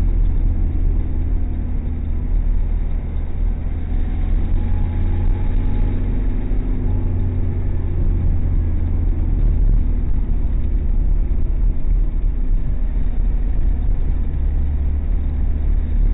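Steady low rumble of a car's engine and tyre noise heard from inside the moving car's cabin.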